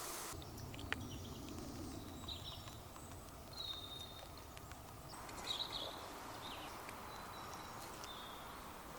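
Faint woodland ambience with scattered short bird whistles and chirps over a low steady background, and a single sharp click about a second in.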